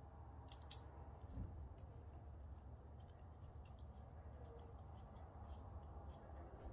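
Faint small metallic clicks and scrapes of new sintered brake pads being handled and seated in a motorcycle's front brake caliper, over a low steady hum.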